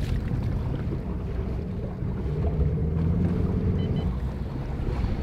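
Wind buffeting the microphone on an open bass boat, a low uneven rumble, with a faint steady hum between about two and four seconds in.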